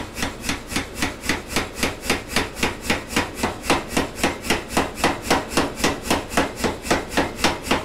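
Say-Mak self-contained air power hammer striking hot steel held in a heading tool on a bolster, a steady run of about five blows a second as it upsets the head of a forged hook.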